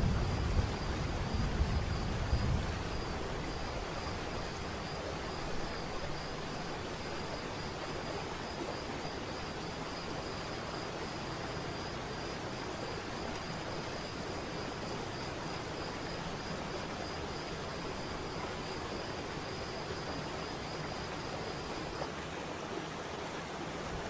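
Steady rush of falling water, an even hiss with no break, under a faint high steady tone that stops a couple of seconds before the end. A low rumble dies away over the first two to three seconds.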